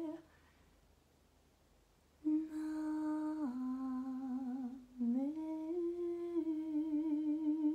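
A woman humming long, slow held notes with a wavering vibrato. One note ends right at the start; after about two seconds of quiet she hums a note that steps down, then slides up to a higher note and holds it.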